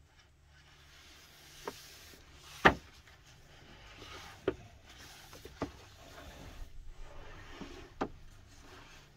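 Handling noise from a Babybjorn One Air Mesh baby carrier: several sharp clicks and knocks of its plastic waist-belt buckle, the loudest about two and a half seconds in, with soft rubbing of the mesh fabric in between.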